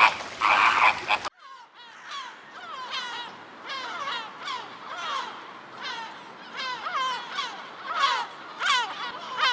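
Loud honking calls that cut off suddenly about a second in. They give way to many small birds peeping, short high calls that each fall quickly in pitch, overlapping about twice a second.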